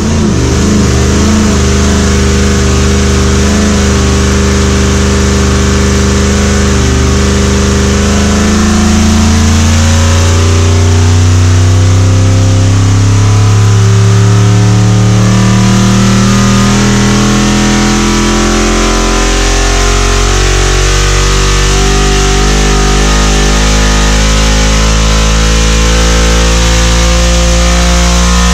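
Katech 427 LT1 V8 running a full-power engine-dyno pull. It is loud and steady, and its pitch rises slowly and evenly as the engine sweeps from about 3,000 to about 7,000 rpm.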